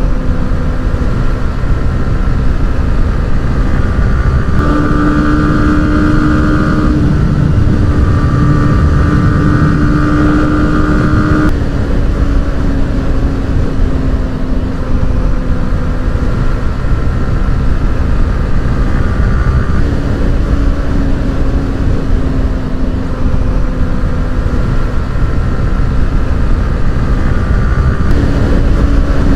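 Yamaha FZ V4's single-cylinder engine running under way through an aftermarket exhaust. The engine note holds steady, then steps up or down in pitch several times as the throttle and speed change, over a steady rush of wind and road noise.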